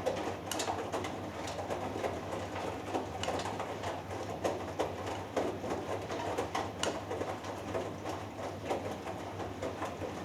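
Hoover Dynamic Next front-loading washing machine tumbling a wet load of cottons: water sloshing and clothes churning in the drum over a steady motor hum, with frequent sharp clicks.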